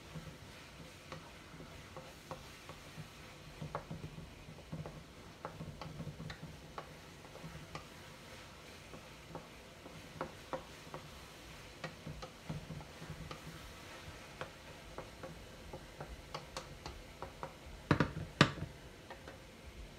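A cooking utensil clicking and scraping irregularly against a pan as ground chicken is stirred while it browns, with two louder knocks near the end.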